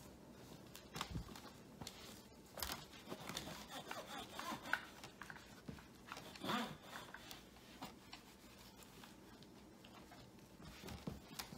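A cleaning cloth rubbing and wiping the plastic back and stand of a computer monitor: soft, irregular scratchy strokes, busiest through the middle.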